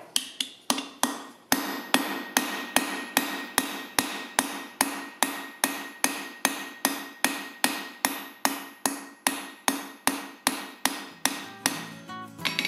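Hammer with a rounded face striking a steel rivet cold on an anvil, peening over the pivot rivet of a pair of forged calipers. A steady run of ringing metal-on-metal blows, about three a second.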